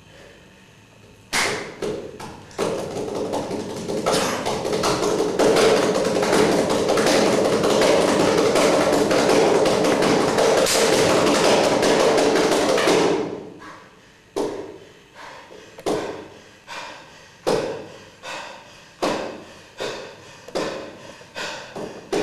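Percussive thuds and taps: a sharp knock, then a dense, loud run of rapid strikes lasting about ten seconds, which stops suddenly and gives way to separate thuds roughly once a second.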